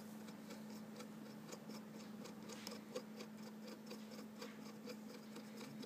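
A run of faint, irregular clicks from the red plastic cap of a tile-leveling clip being twisted down its metal spindle to press the tile edges level, over a steady low hum.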